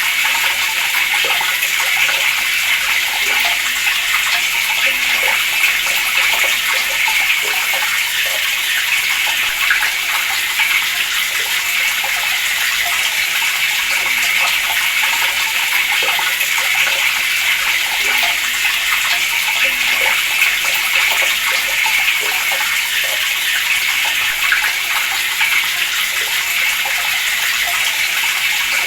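Water tap running steadily, a continuous stream splashing into a basin.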